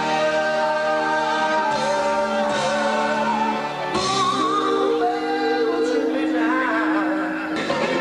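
Live rock band playing with singing, long notes held by voices and instruments; the chord changes about four seconds in.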